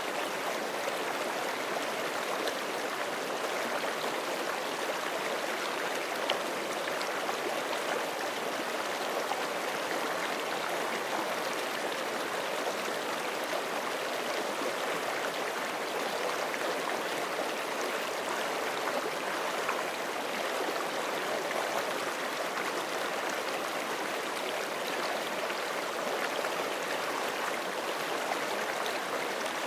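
Forest stream running steadily over rocks, a constant rushing and gurgling of water, with a small tick about six seconds in.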